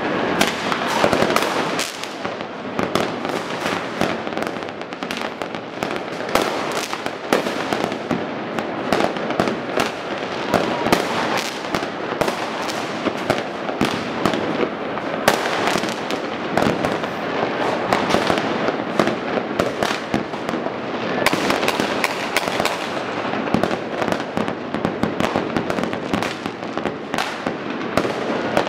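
Dense, unbroken barrage of many fireworks going off at once: rockets and aerial shells bursting, with bangs and crackles overlapping continuously.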